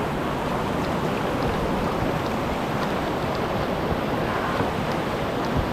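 Steady rush of a whitewater river's current running over rocks.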